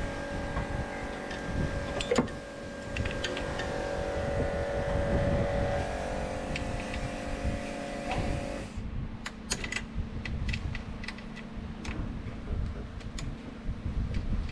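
An open-end spanner working a bolt on a car's AC condenser bracket: a series of short, sharp metal clicks and clinks from about nine seconds in. Before that, a steady mechanical hum with a few held tones and low rumble.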